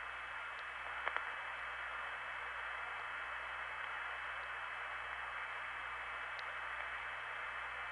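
Hiss on an open long-distance telephone connection heard from a mid-1970s tape recording, with a faint steady high tone running under it and two quick clicks about a second in.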